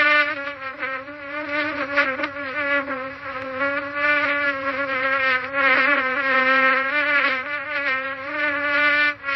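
Housefly buzzing in flight: one continuous wing buzz whose pitch wavers slightly and whose loudness swells and dips as the fly moves about.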